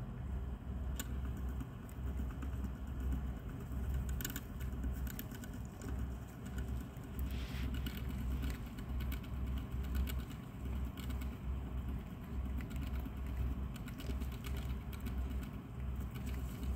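Hamster chewing a small piece of food held in its paws: quick, crisp crunching clicks over a low rhythmic thudding, with a denser run of crunches about seven seconds in.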